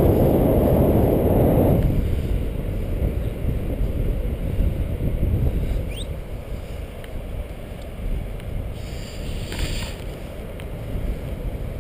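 Wind buffeting an action camera's microphone: a low rumble, heaviest for the first two seconds, then easing to a steadier, lower rush.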